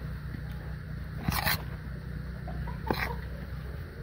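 Chicken pieces being rubbed and pressed into a bowl of dry flour coating by hand, giving short scraping rubs about a second in and again near three seconds, over a steady low hum.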